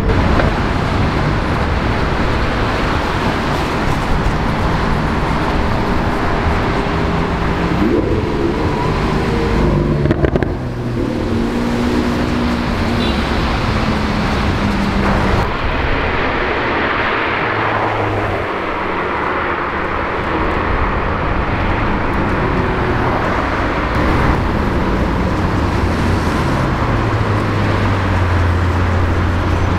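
High-performance car engines and exhausts on a city street, with traffic around them. The engine note rises and falls as the cars accelerate, and climbs steeply in pitch near the end.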